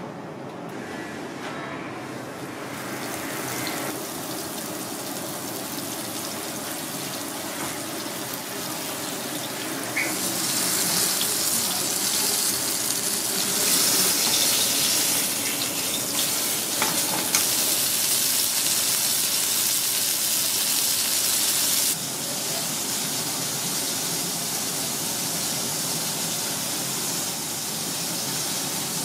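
Hot oil sizzling in a small wok as a razor fish fillet pan-fries, a steady hiss that gets louder about ten seconds in and drops suddenly a little after twenty seconds.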